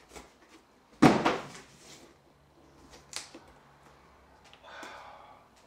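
Stiff signs being handled and swapped: a sudden loud rustle and clatter about a second in, a sharp tap around three seconds, and a shorter rustle near the end.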